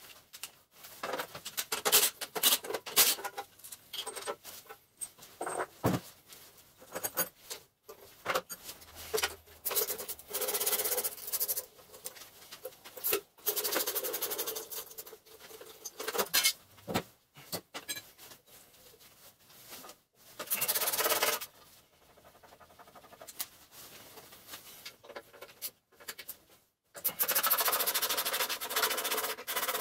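Hands and tools working on a cast-iron Kohler engine on an engine stand: irregular clinks and knocks of metal parts, with several stretches of rustling and scraping.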